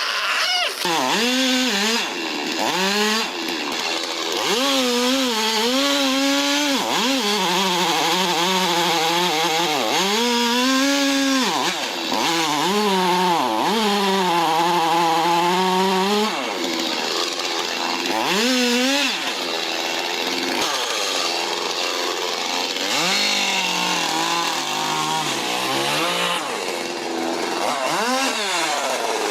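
Two-stroke chainsaw running at full throttle and cutting into a tree, its engine pitch rising and falling over and over as the throttle is worked and the chain bites into the wood, with a steadier stretch in the middle.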